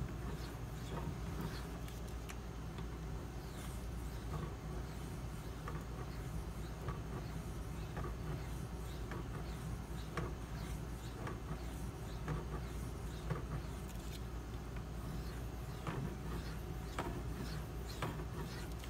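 Steel knife edge stroked back and forth on a wet, fine-grit Shapton Pro water stone while polishing the edge, making soft, irregular scrapes about once or twice a second over a steady low hum.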